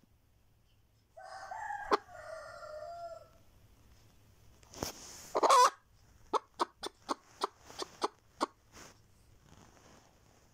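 Naked-neck hen cackling: a drawn-out call about a second in, a loud squawk about halfway, then a quick run of short clucks, about four a second. It is the kind of cackle a hen gives around laying an egg.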